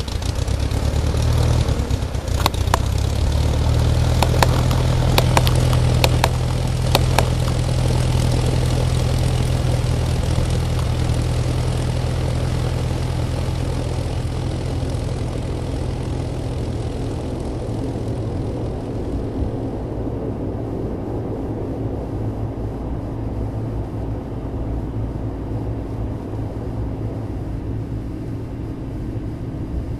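Propeller aircraft engine running with a steady low drone that builds up in the first couple of seconds and is loudest with a few sharp clicks over the next several seconds. It then slowly eases off, its hiss thinning out in the latter half.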